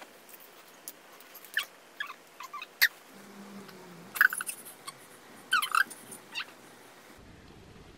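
A large cat being held on its back and pilled with a worming tablet: scattered short clicks and small squeaky chirps as he squirms, with a brief low tone about three seconds in.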